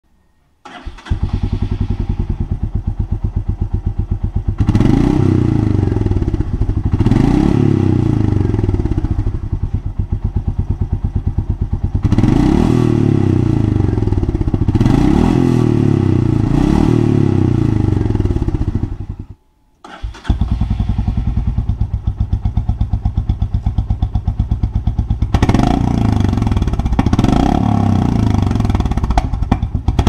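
Royal Enfield Meteor 350's single-cylinder engine idling and revved in short throttle blips through its stock exhaust muffler. After a brief break about two-thirds of the way in, it runs again with the muffler tip removed, idling and then blipped repeatedly near the end.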